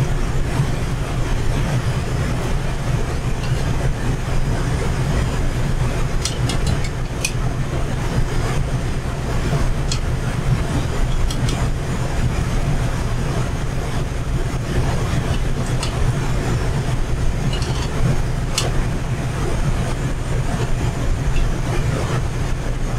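Steady low rumble of a commercial kitchen, gas range and ventilation, under the hiss of beignets deep-frying in a pot of oil. A few sharp metallic clicks come as a metal utensil lifts the fried dough out against the pot and sheet pan.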